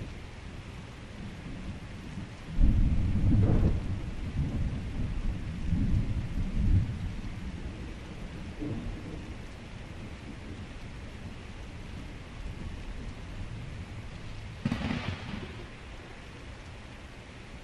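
Heavy rain hissing steadily, with a deep thunderclap about two and a half seconds in that rumbles on for several seconds, and a second, shorter thunderclap near the end.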